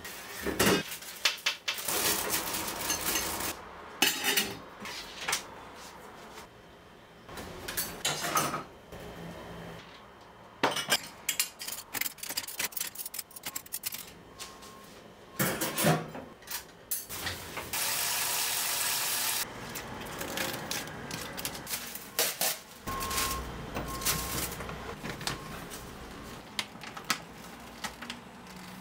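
Stainless steel pots, lids and utensils clattering and clinking against each other as they are handled and put away, in many separate knocks. A steady hiss lasts about a second and a half a little past the middle.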